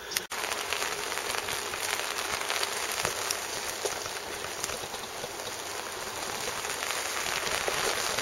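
Light rain pattering steadily, with scattered small ticks.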